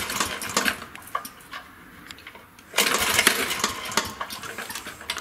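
Honda lawn mower being pull-started: two pulls on the recoil starter, a second or so of cranking each, about three seconds apart, and the engine does not catch.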